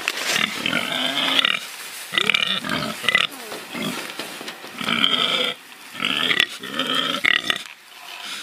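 Domestic pigs grunting in a run of bursts of about half a second to a second and a half, with short pauses between, fading near the end.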